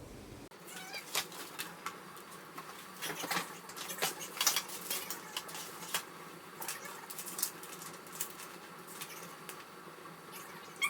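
Scattered light clicks, taps and rustles of parts being handled, as in unpacking and assembling a baby swing.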